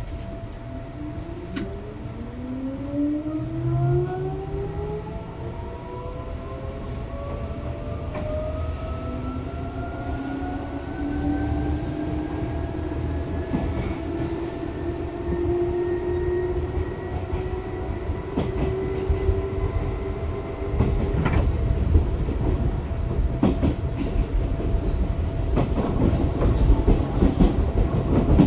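Seibu 2000 series electric train pulling away and accelerating: a cluster of motor and gear whines climbs steadily in pitch for about twenty seconds, then stops abruptly, leaving louder wheel-and-rail running noise with rail-joint clicks.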